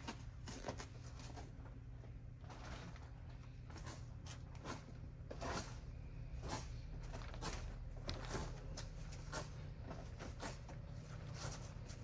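Mattress tufting ties being cut and quilted pillow-top fabric being tugged and scraped, a string of short irregular snips and rustling scrapes about once or twice a second, over a steady low room hum.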